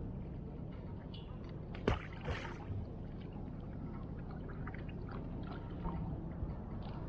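Steady low rumble of water and wind around a moored fishing raft, with one sharp click about two seconds in and a few lighter ticks of handling.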